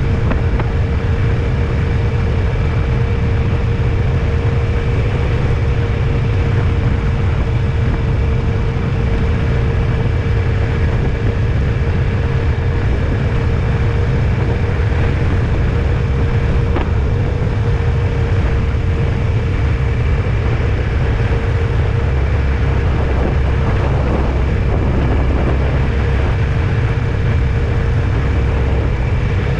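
A vehicle on the move: steady low road and engine rumble with a constant hum over it.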